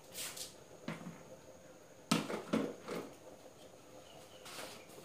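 Kitchen containers and utensils being handled on a counter: a few scattered knocks and clatters, the loudest pair about two seconds in, with some light rustling.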